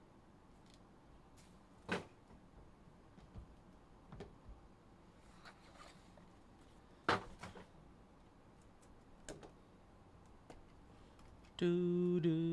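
Cardboard trading-card hobby box being opened and its cards handled: a few separate sharp taps and knocks over a quiet background, the loudest about seven seconds in. Near the end a man's voice comes in with a drawn-out hum.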